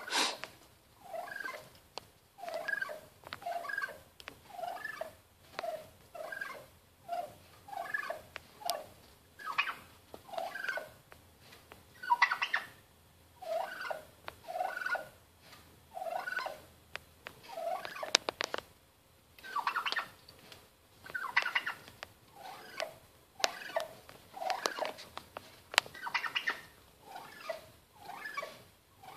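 Male turkey (tom) calling over and over at its own reflection: short calls about one or two a second, with several louder, harsher calls in the middle and later stretch.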